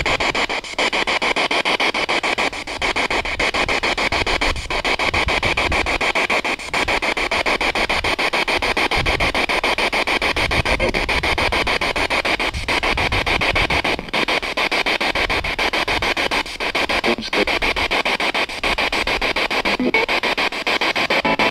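Static from a ghost box, a radio rapidly sweeping through stations: a steady hiss chopped many times a second, briefly dropping out every few seconds.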